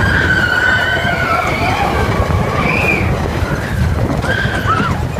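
Big Thunder Mountain Railroad mine-train coaster rumbling steadily along its track, with high wavering squeals rising over the rumble a few times.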